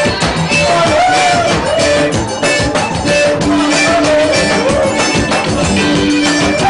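Music with a steady beat and a wavering melody line.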